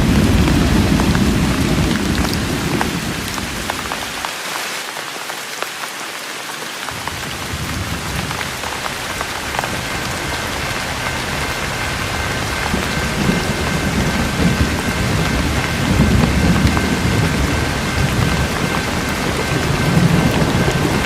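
Steady rain falling, with low rolling thunder rumbles under it. The rumble fades out about four seconds in, builds back from about seven seconds, and swells again later.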